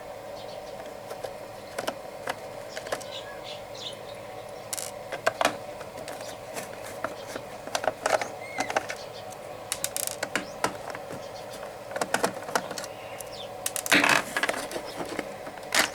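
Small screws being undone and the plastic housing of a rechargeable LED lamp being handled and opened: irregular small clicks, taps and rattles over a steady background hum.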